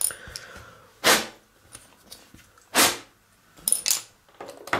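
Two short rushes of noise about a second and a half apart, from hands working a small plastic model part, followed by light clicks and scrapes of the part being handled.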